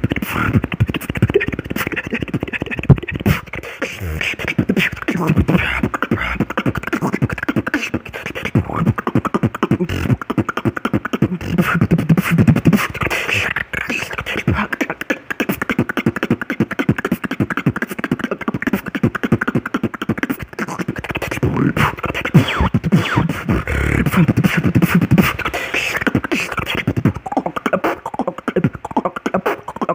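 Beatboxing: a fast, unbroken stream of mouth-made kicks, snares and clicks, with low bass tones held at times. It is performed into the inline microphone of wired earphones held at the mouth.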